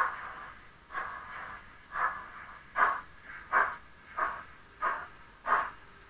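Chuffing of a model steam locomotive from its sound unit, about eight exhaust beats that quicken from roughly one a second to about one and a half a second as the engine picks up speed.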